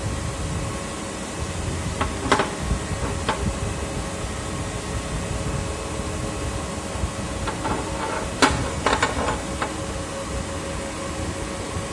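A machine running steadily with a low rumble and a steady hum. There is a sharp knock about two seconds in, and a cluster of clicks and knocks near the two-thirds mark.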